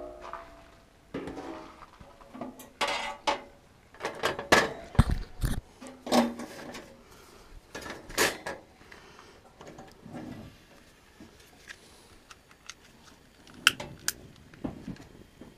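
Dishes and cooking utensils being handled: scattered clinks and knocks at irregular intervals, busiest in the first half.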